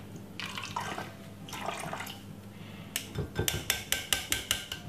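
Blended ginger liquid trickling through a metal mesh sieve into a glass measuring jug. About three seconds in, a spoon scrapes and taps the pulp against the sieve in a quick run of sharp metallic clicks, about five a second.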